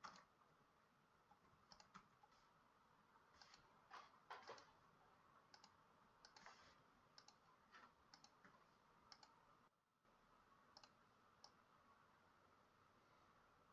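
Near silence with faint, scattered short clicks, some in quick pairs.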